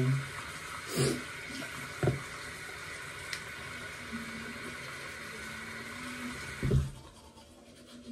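Bathroom sink tap running in a steady stream, shut off about seven seconds in, with a few short knocks and clatters while it runs.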